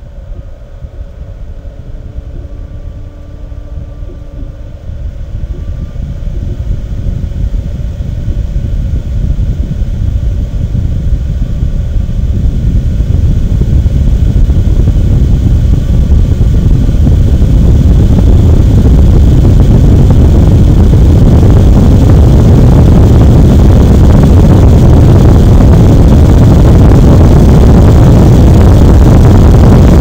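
Cooling fan of an AMD Radeon HD 6950 2GB graphics card blowing air out of the card's exhaust, picked up an inch or two away, as its speed is stepped up from 40% toward 100%. The rush of air grows steadily louder over about the first eighteen seconds, then holds loud and even.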